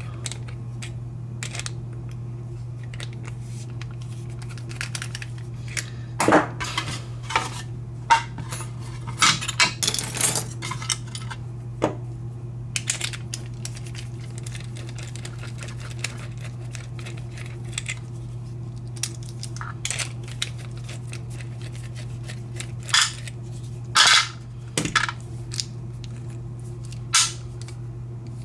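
Scattered metallic clicks and clinks of a brass-cored American padlock and its key being handled and worked, over a steady low hum.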